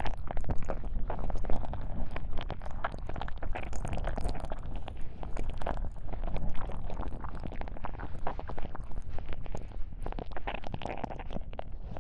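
Binaural ASMR ear-cleaning sounds close at the microphone's ear: continuous rubbing with dense crackling over a low rumble.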